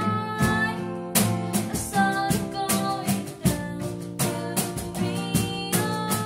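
Background music: a song with plucked guitar, a steady beat and some singing.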